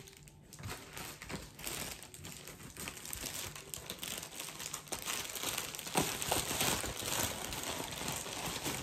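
Plastic packaging crinkling and crackling as it is handled, getting louder from about six seconds in.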